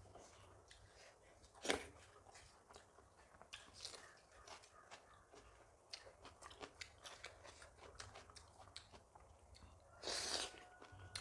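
Close-miked eating: soft, irregular chewing clicks and mouth smacks, with one sharper click about two seconds in and a short breathy noise near the end.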